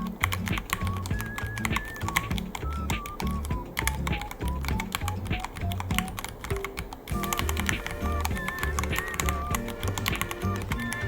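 Rapid, continuous typing on a Ducky One 3 mechanical keyboard, irregular clicking keystrokes, over background music with a melody and a steady bass beat.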